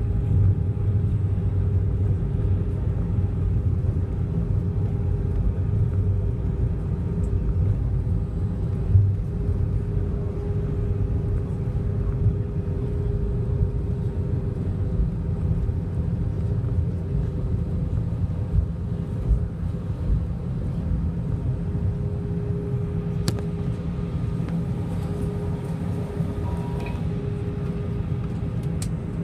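Cabin noise of an Airbus A320 rolling on the ground after landing: a steady low rumble with a constant hum. There are a couple of sharp clicks in the last several seconds.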